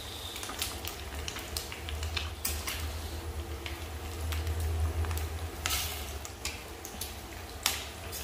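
Small mackerel (ikan kembung) frying in a pan of hot oil, with irregular crackling and popping over a steady low rumble. A single sharp knock near the end.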